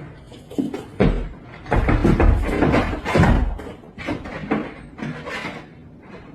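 A run of heavy thumps and knocks, the loudest between about one and three and a half seconds in, followed by several lighter clatters.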